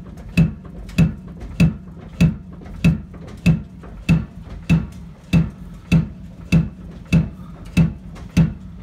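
Worn Fox 2.5 rear shocks on a 2012 Ford Raptor clunking each time the truck is bounced, a sharp knock about every 0.6 seconds. The owner takes the klunk as the sign that the shocks are due for a rebuild.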